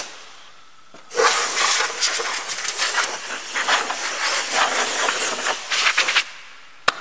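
Compressed-air blow gun hissing in one uneven blast of about five seconds, starting about a second in, as it blows cut plastic shavings off the trimmed panel. A single sharp click near the end.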